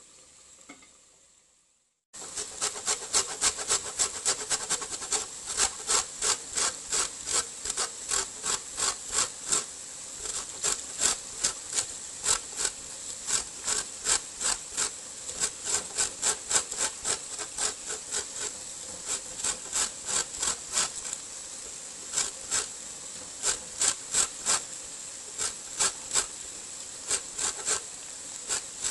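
A lemon is rubbed up and down a metal grater to zest it: rhythmic rasping strokes, about two to three a second, with a few short pauses. The strokes start about two seconds in.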